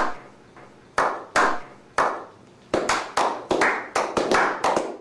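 A slow clap: single hand claps about a second apart, then several people clapping together, quickening from a little under three seconds in.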